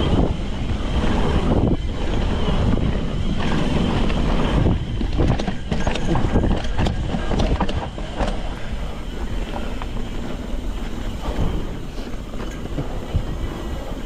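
Cannondale Scalpel full-suspension mountain bike descending a dirt trail: steady wind buffeting on the microphone and tyres rolling over dirt, with many sharp clicks and knocks of the bike rattling over bumps. A little quieter after about eight seconds.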